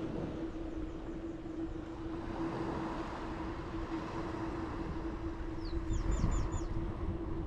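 A steady mechanical hum at one pitch under a haze of wind and surf noise, with a quick run of four high bird chirps about six seconds in, where a gust of wind rumbles on the microphone.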